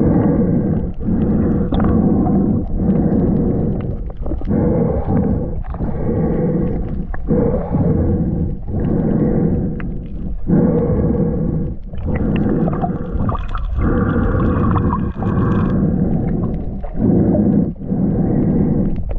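Muffled underwater rumble with a faint steady hum in it, dipping briefly about once a second.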